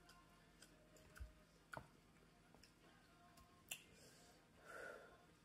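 Near silence with a few faint, scattered clicks as wooden chopsticks pick at ramen noodles in a plastic container.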